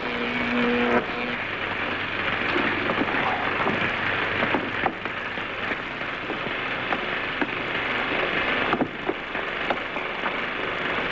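A steady rushing, hissing noise with scattered faint clicks; a couple of held tones cut off about a second in.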